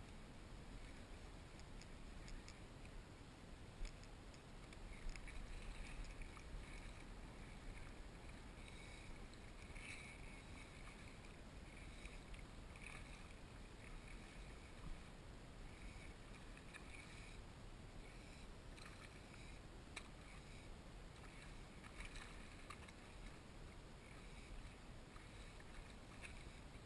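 Faint wind rumble on the microphone and small wavelets lapping against a plastic kayak hull, with scattered light ticks and splashes.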